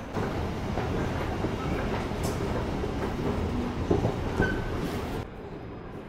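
Steady noise of a subway train running through the station, cutting off suddenly about five seconds in.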